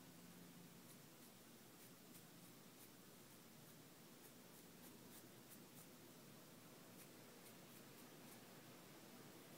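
Faint, scratchy, irregular strokes of a Sharpie permanent marker colouring a rubber-banded white T-shirt, over quiet room tone.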